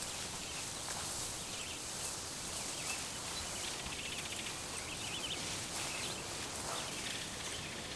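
Tall grass and brush rustling steadily as an elephant pushes through the undergrowth, with a few faint bird chirps.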